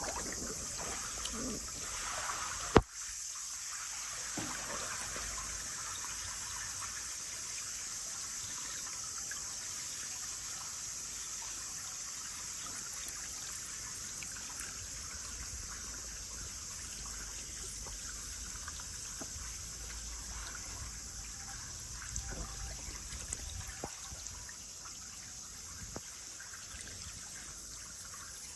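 Running water trickling steadily, with one sharp click a little under three seconds in.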